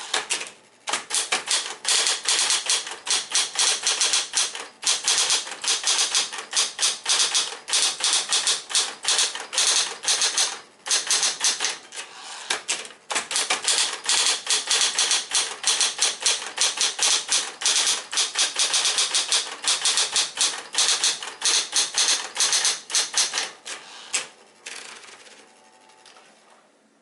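Smith-Corona Coronet Electric 12 electric typewriter typing quickly: a fast run of keystrokes with a few brief pauses. The typing stops near the end, leaving a faint steady hum.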